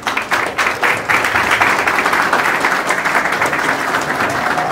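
Audience applauding, the clapping building up over the first second into steady applause.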